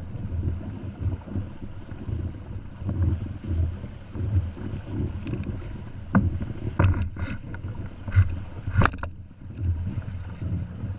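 Hobie Tandem Island sailing kayak moving fast through choppy water: water rushing and slapping against the hulls and amas, with wind buffeting the microphone as a gusting low rumble. Several sharper splashes come between about six and nine seconds in.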